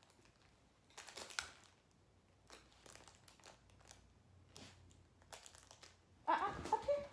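Crinkle lining of a plush dog toy rustling in short, scattered bursts as a small dog noses and pulls at it, with a brief voice near the end.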